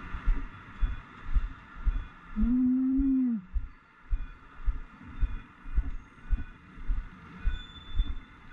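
Low knocking thumps about twice a second from a bicycle being ridden. A short hum-like tone rises and falls about two and a half seconds in.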